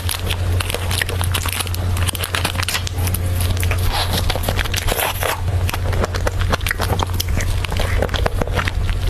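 Close-miked eating sounds: soft chewing, lip smacks and mouth clicks on a layered cream-and-sponge cake, with crackly scrapes from handling the plastic cup, over a steady low hum.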